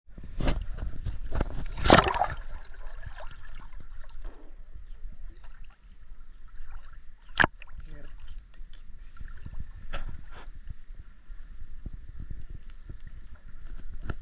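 Shallow seawater sloshing and lapping over a steady low rumble, with several sharp splashes, the loudest about two seconds in and another about seven seconds in.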